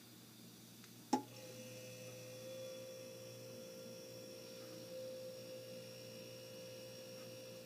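A bell-like chime struck once about a second in, then ringing on as one long steady tone with fainter higher overtones.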